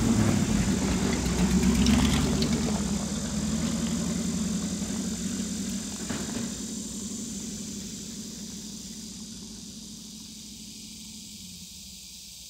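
A vehicle engine running as it drives away down a gravel road, its steady low note fading out, with a few faint clicks in the first half.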